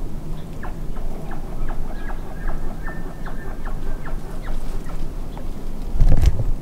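A series of short, repeated animal calls, about three a second for roughly four seconds, over a low steady rumble. Near the end there is a loud, low blast of wind or handling noise on the microphone.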